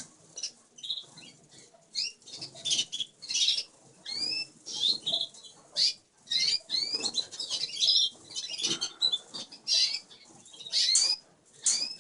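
Red factor and mosaic canary hens in a flight cage: many short, rising chirp calls over and over, with wings fluttering as the birds flit about.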